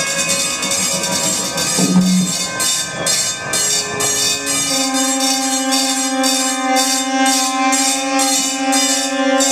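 Live experimental band music: a regular hissing percussion pulse, about two strokes a second, joined about five seconds in by a steady held note with several overtones.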